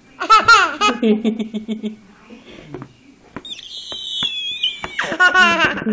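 Baby squealing and shrieking excitedly: a loud falling squeal about half a second in, a long, very high squeal in the middle, and more gliding squeals near the end, with a few sharp taps among them.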